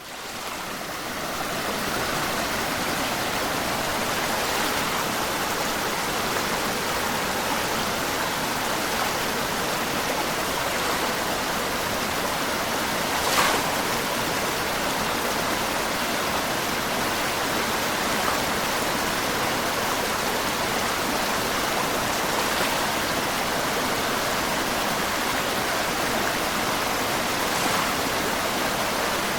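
Small waves lapping against a stone embankment, a steady wash of water that fades in over the first two seconds, with one slightly louder splash about halfway through. It is a sound effect standing in for the ripples.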